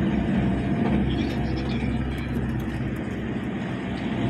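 Engine and road noise of a moving vehicle heard from inside its cabin: a steady low drone.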